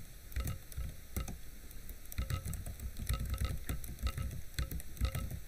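Computer keyboard typing: an irregular run of key clicks, several a second, as a word is typed.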